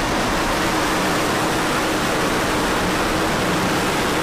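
Falcon 9 first stage's nine Merlin engines at liftoff: a steady, loud rush of rocket exhaust noise.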